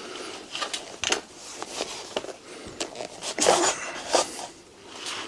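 Light metallic clicks and rattles from the parts of a Vogel Curie folding bike being handled as it is unfolded, with the handlebar being locked in place. Several short knocks come irregularly, the loudest cluster a bit over three seconds in.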